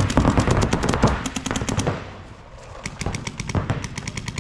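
Paintball markers firing rapid strings of shots, many a second, with several players shooting at once. The shooting is dense for the first two seconds, slackens briefly, then picks up again.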